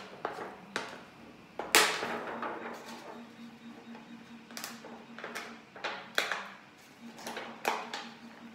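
A clear acetate sheet being pressed onto the pins of a 3D-printed face-shield visor: a run of about ten sharp plastic snaps and crinkles, the loudest about two seconds in.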